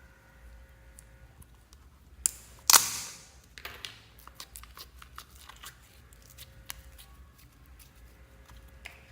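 Slime being worked by hand, with a sudden loud crackly pop a little under three seconds in, then many small scattered clicks and pops.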